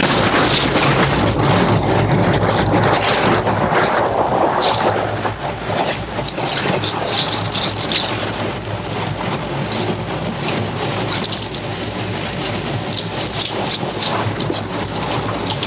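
Steady rushing of water falling at a partly frozen waterfall, a little louder in the first few seconds, with scattered sharp clicks.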